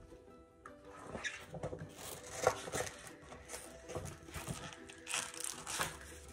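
Paper rustling and crinkling as a spiral-bound picture book's pages are handled and turned, in a run of irregular scrapes. Soft background music stops about a second in.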